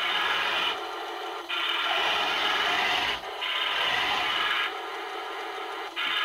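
Heng Long 1:16 RC Panther tank's electric drive motors and metal gearboxes whirring as it drives, with the tracks rattling. The sound comes in three stretches of driving and drops to a quieter level between them.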